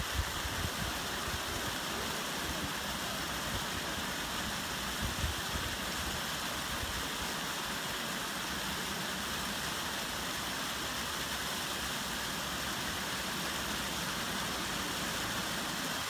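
Steady outdoor background hiss, even and unbroken, with no distinct events standing out.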